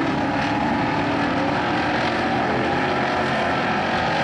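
Several dirt-track race car engines running at speed around the oval: a steady, dense drone of overlapping engine notes.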